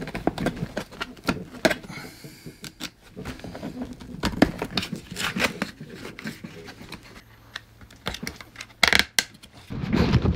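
Irregular clicks, scrapes and rustling from hand work on a car rear seat back: a utility knife cutting along the seat, plastic trim being handled, and a leather seat cover being pulled on. There is a louder rustle about nine seconds in.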